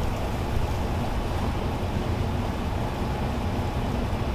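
Wind buffeting the microphone outdoors: a steady low rumble with hiss above it.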